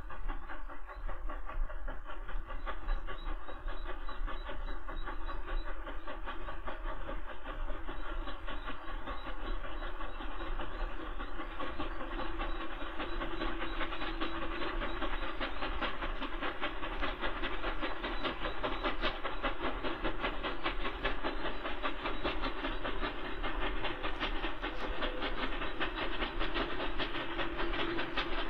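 Steam locomotives working hard up a steep gradient: a tank engine (probably an 0-8-0T) piloting two tender engines (probably 2-8-2s) on a heavy express, with another tank engine banking at the rear. Their exhaust beats overlap into a rapid, steady chatter with hiss, growing louder about halfway through as the train approaches.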